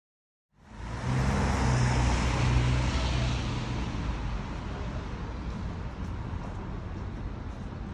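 Street traffic: a motor vehicle's engine hum and tyre noise come in loud after half a second of silence, then ease off after about three seconds into steadier road noise.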